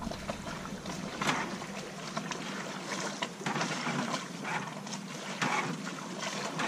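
Water rushing and splashing along the hull and wake of a sailing yacht under way, with a few louder splashes. Wind is faint.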